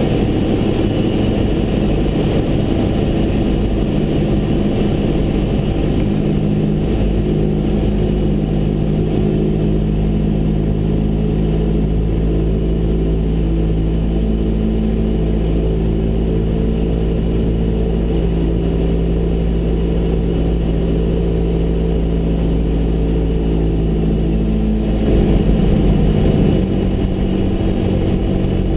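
Cessna 172R's four-cylinder piston engine and propeller droning steadily, heard inside the cabin. The pitch shifts slightly a few seconds in, then rises briefly and grows a little louder near the end.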